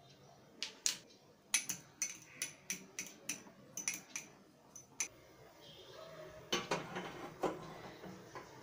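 A spoon whisking eggs in a small ceramic cup: a run of quick, sharp clinks against the cup's sides. Near the end, a few louder clatters of cookware.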